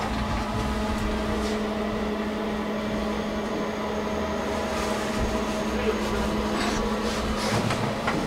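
KONE elevator car travelling upward, its drive giving a steady low hum that stops shortly before the end, followed by a couple of faint clicks.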